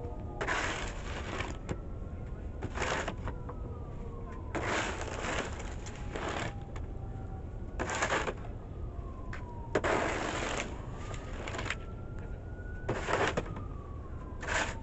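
Red plastic snow shovel scraping snow off a concrete sidewalk in repeated strokes, each scrape lasting under a second, about eight in all. A faint rising and falling wail runs underneath.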